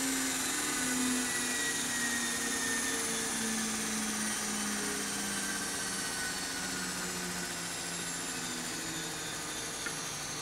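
Okamoto OGM-820UST universal cylindrical grinder running, a steady machine hum and whine that slowly drops in pitch throughout. A small click comes near the end.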